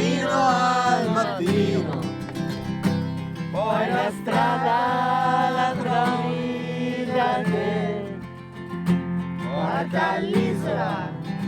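Background song: a voice singing long, wavering phrases over acoustic guitar, in three phrases with short gaps between them.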